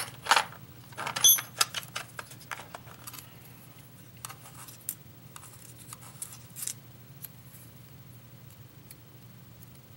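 Small metal clicks and clinks of a pin-tumbler lock and a metal shim being handled as the lock is shimmed open for disassembly, with a brief ringing ping about a second in. The clicks are densest in the first few seconds, then thin out to a few faint ticks.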